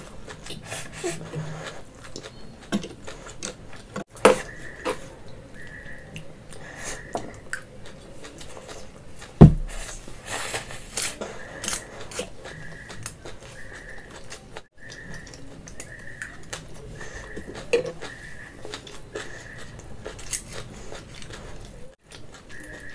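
Noodles being eaten close to the microphone: chewing, with short clicks of cutlery on dishes. One loud thump about nine and a half seconds in.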